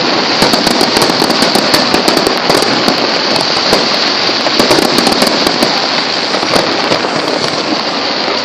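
Firecrackers crackling densely and without a break: a rapid, continuous stream of sharp pops.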